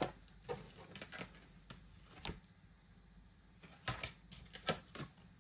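Paper and card being handled: a few scattered light taps and rustles, about five in all.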